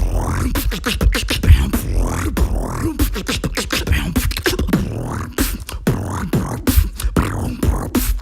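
Beatboxing: a fast run of mouth-made clicks, kicks and snare-like hits over deep vocal bass, with some gliding pitched sounds.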